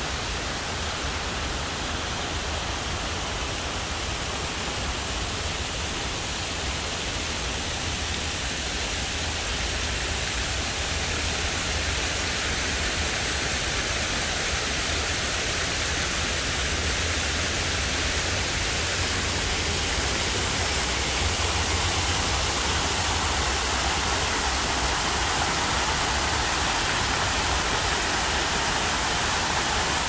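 Artificial rock waterfall: water pouring down several cascades and splashing into a pond in a steady rush, growing gradually louder over the second half, with a low rumble underneath.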